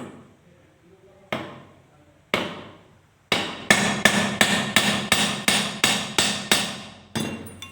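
Hammer blows on a car window regulator part: two single strikes, then a quick run of about a dozen blows at roughly three a second, each ringing briefly.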